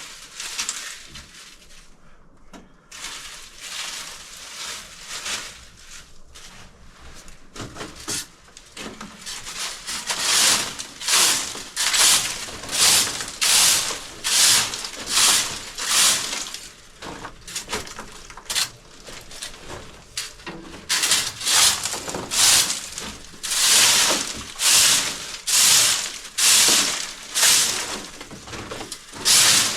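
Rhythmic scraping or brushing strokes, about one every three-quarters of a second. They start about a third of the way in, stop briefly in the middle, then resume. Quieter irregular rustling and scraping comes before them.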